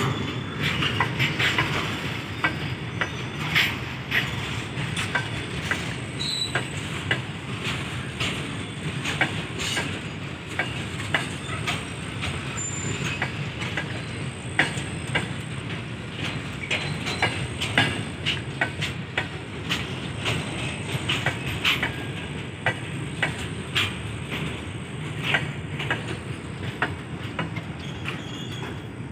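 Goods train of covered steel boxcar wagons rolling past at close range: a steady low rumble of wheels on rail, broken by many irregular sharp clicks and clanks.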